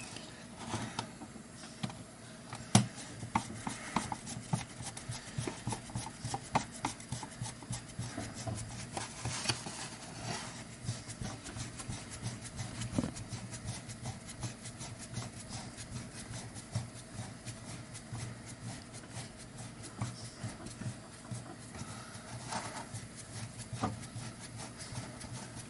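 Hand screwdriver turning case screws into a plastic timing-light housing: many small irregular clicks and scraping sounds, over a low steady hum.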